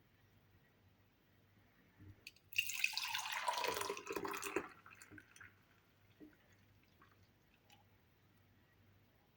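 Liquid pouring for about two seconds, starting a couple of seconds in, then a few faint drips.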